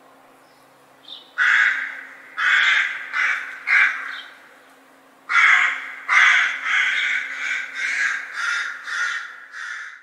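A crow cawing: harsh, rasping caws, first a run of four about a second apart, then after a short pause a quicker series of about eight.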